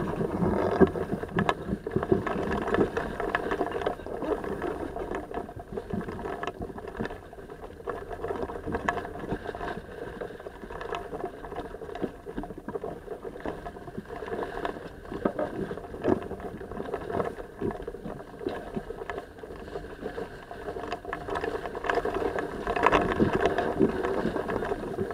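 Sailboat moving under sail: a steady rush of water along the hull and wind, with scattered knocks and clicks from the deck gear and rigging, a little louder near the end.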